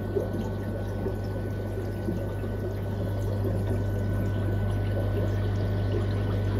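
Aquarium water noise: bubbling and trickling water over a steady low hum, as from air-driven sponge filters. It gets a little louder about halfway through.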